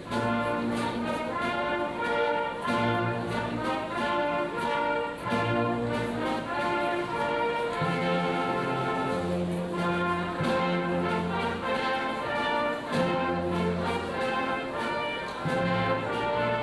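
Band music led by brass, playing the recessional in held chords that change about every second over a moving bass line.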